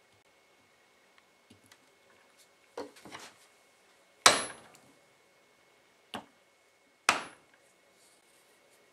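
Hammer blows on steel ring-making tooling: a few light taps and knocks, then three sharp strikes spaced about one to two seconds apart. The two loudest strikes leave a short, high metallic ring.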